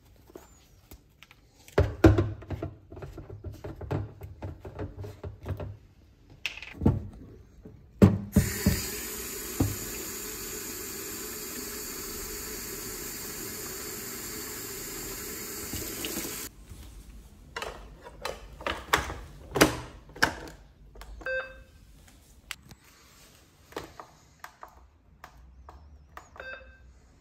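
Plastic clicks and knocks, then a water tap running steadily for about eight seconds before it is shut off. More clicks follow, with a few short beeps near the end.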